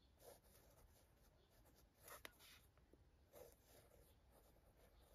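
Faint scratching of a pen writing cursive on paper, in a few short strokes with a light tick a little after two seconds in.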